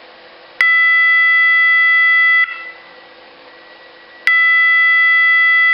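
Roshni fire-alarm sounder giving a loud, steady, single-pitched electronic tone in two long blasts of nearly two seconds each, with a pause of about the same length between them. This on-off pattern is one of the alarm patterns selectable on the sounder's dip switches.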